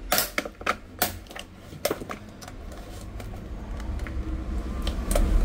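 Plastic housing of a Tefal clothes iron clicking and snapping as it is pried apart by hand: a quick run of sharp clicks over the first two seconds or so, then scattered clicks over a low handling rumble that grows louder toward the end.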